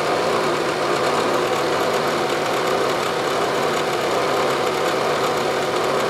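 Bridgeport vertical milling machine running steadily, its spindle turning an edge finder while the edge of the workpiece is located.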